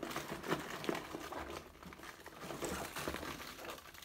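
Rustling and crinkling of a dry bag and plastic food packets being rummaged through by hand, with a few small knocks.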